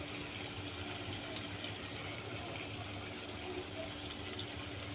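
Steady low hiss of a pot of potato curry cooking on a gas stove, with a few faint ticks.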